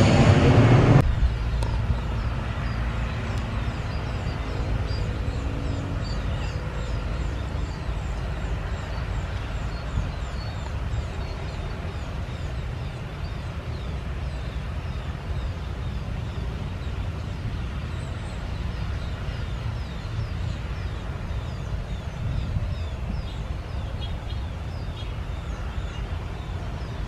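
The sound of a jet airliner passing overhead stops suddenly about a second in. It leaves a steady low rumble, with faint bird chirps above it.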